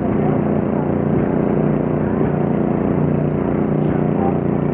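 An engine running steadily at a constant speed, a loud even drone that doesn't change pitch.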